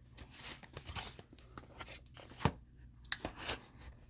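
Packing tape being picked at and torn off a heavily taped package, with irregular crackling and scraping and a few sharp clicks, the sharpest about two and a half seconds in.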